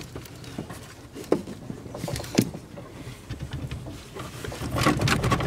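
A truck steering column being tugged while it is still held by a forgotten bolt: low scraping and shuffling with a few knocks, two sharper ones about a second apart.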